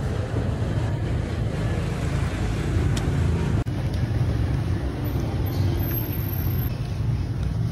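Steady low rumble of street traffic. It drops out for an instant about three and a half seconds in.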